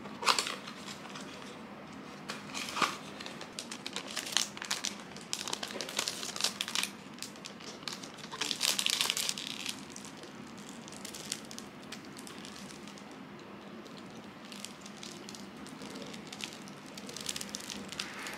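Thin plastic wrapper crinkling as hands unwrap a sticky rice cake, in a series of short crackly bursts, loudest a little before the middle. The crinkling dies down, with a few fainter rustles near the end.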